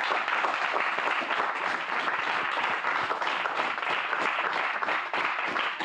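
A group of people applauding with steady, even clapping.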